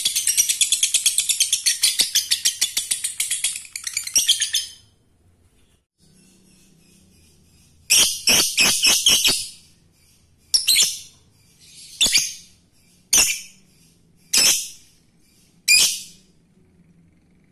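Lovebird calling: a fast, unbroken rattle of shrill chattering notes, the ngekek, for the first four to five seconds. After a pause of about three seconds comes a quick burst of shrill notes, then five single sharp calls about a second apart.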